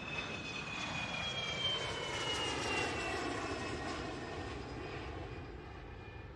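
Jet airliner flying past: the engine noise swells to a peak about midway and then fades, with a high whine that slowly falls in pitch.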